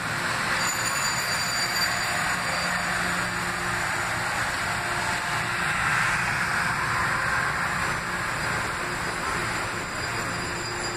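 Metro-North M3 electric multiple-unit train standing at the platform with its doors open, giving a steady hiss with a low hum underneath.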